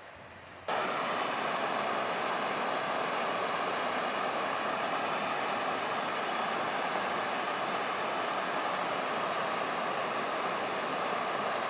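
Waterfall, its falling water making a steady, even rush. The sound cuts in abruptly louder under a second in, then holds steady.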